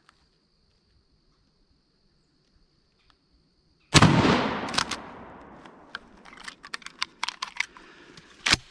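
A shotgun fired at a duck: one loud blast about four seconds in, dying away over a second or so. Scattered clicks and rustling follow, then another sharp bang near the end.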